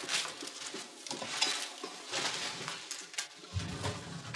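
Newspapers rustling and crackling as a stack of them is gathered up by hand, with small scattered knocks of handling. A low rumble comes in near the end.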